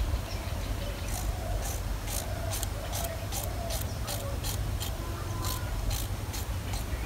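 Knife slicing pieces off a white radish held in the hand, a run of short crisp cuts about two to three a second.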